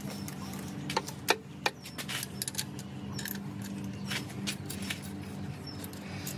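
Metal clinks of a socket and wrench on the hold-down nuts of a John Deere 2010 diesel's cylinder liner bank as the nuts are run down lightly, three sharp clinks about a second in and lighter ones after, over a steady low hum.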